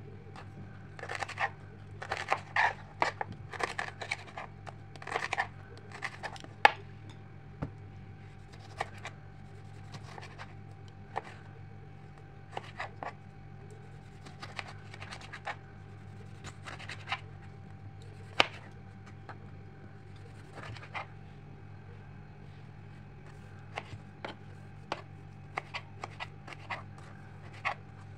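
Kitchen knife slicing tomatoes on a plastic cutting board: sharp taps and scrapes of the blade on the board, in a quick run of cuts over the first several seconds, then sparser single cuts. A steady low hum runs underneath.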